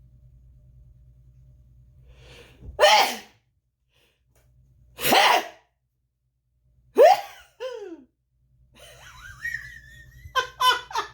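A woman sneezing loudly three times, about two seconds apart, each a sudden explosive burst. The third ends in a falling voiced tail. The sneezes are big enough to be likened to a foghorn.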